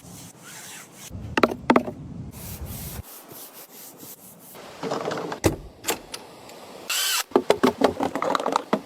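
Scattered knocks and rubbing of objects being handled, with a brief whistling glide about seven seconds in and a quick run of clicks near the end.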